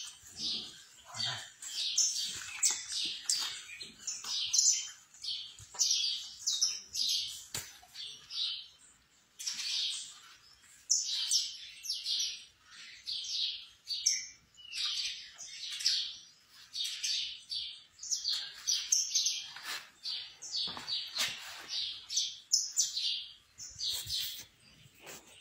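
Small birds chirping: quick runs of short, high chirps with brief gaps in between.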